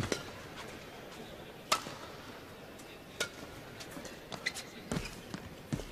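Badminton rally: a feathered shuttlecock struck back and forth with rackets, sharp cracks at the start and then about a second and a half apart, followed by lighter taps and footfalls on the court.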